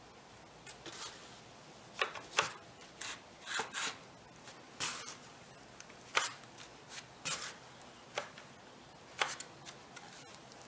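Irregular short rubbing and scraping sounds as a hand shifts and lines up pine furring strips on cardboard at a freshly glued joint.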